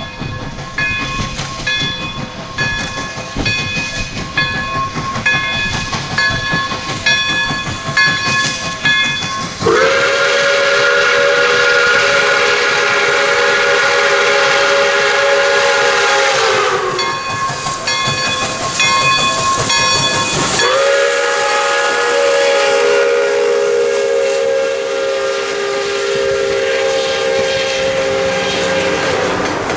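Pere Marquette 1225, a Lima 2-8-4 steam locomotive, blowing two long blasts on its whistle, several tones at once, each lasting about seven to eight seconds and sliding down in pitch as it closes. Before and between the blasts a bell rings steadily over the train's running.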